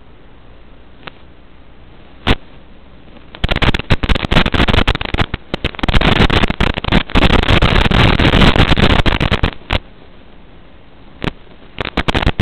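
Radio static on the analog FPV video link's audio: a steady low hiss, then loud, broken crackling from about three and a half seconds in to nearly ten, with single sharp clicks before and after, typical of a weakening analog signal.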